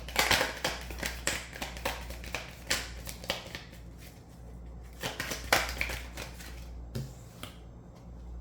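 A deck of tarot cards being shuffled and handled: a dense run of quick card clicks and rustles, then a few scattered snaps of cards later on.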